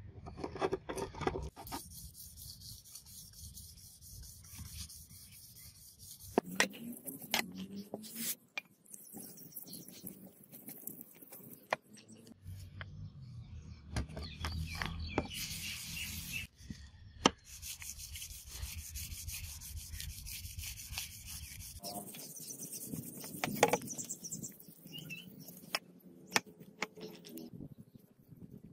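Fine wet-and-dry sandpaper, 2000 to 4000 grit, rubbed by hand along a steel katana blade in scratchy stretches of strokes, polishing the blade. A few sharp clicks stand out, the loudest about a third of the way in, near the middle and about three quarters of the way through.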